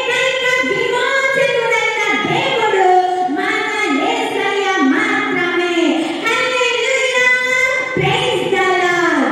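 A woman singing solo, held notes that glide up and down between short breaks.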